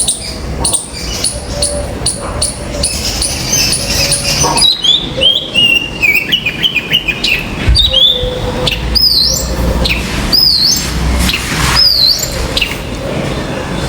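Common myna calling: a quick run of short sharp chirps, then a string of looping whistles, several of them sweeping sharply upward.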